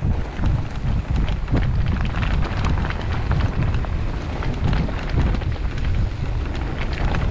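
Mountain bike rolling down a dirt and stone trail: wind rumbling on the microphone, with tyres running over loose stones and the bike rattling in many small clicks.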